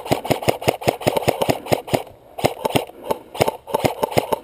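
Airsoft rifles firing rapid bursts, a fast clatter of shots at about eight or nine a second, with a brief pause about two seconds in.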